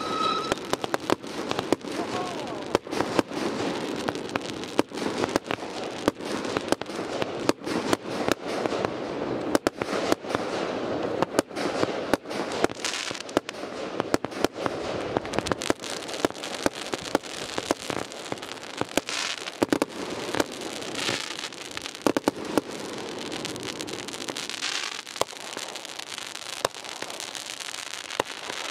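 Aerial fireworks going off: a fast, irregular run of sharp bangs from shells launching and bursting, several a second, over a continuous crackle.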